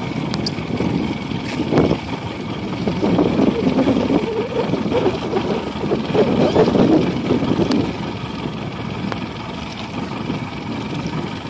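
Steady, uneven rumbling noise aboard a small boat on choppy river water.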